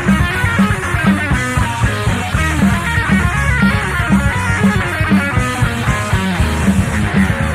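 Instrumental rock passage with no vocals: guitar lines over bass and drums, with a steady low beat, in a home-made recording.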